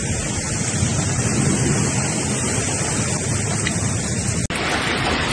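Heavy rain and hail pelting the ground in a steady, dense hiss. About four and a half seconds in, the sound cuts abruptly to another recording of noisy downpour.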